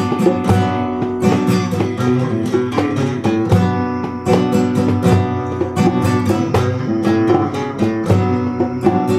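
Solo classical acoustic guitar playing an instrumental passage of a Sephardic song, with plucked notes and chords and frequent sharp attacks.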